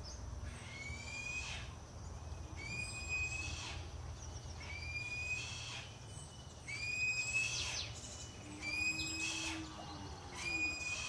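Yellow-headed caracara calling: a series of about six shrill, drawn-out screams, each about a second long, rising and then holding, repeated roughly every two seconds.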